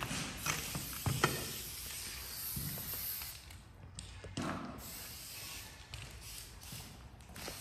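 Scuffing footsteps with a few scattered taps, and a hissing noise over the first three seconds or so.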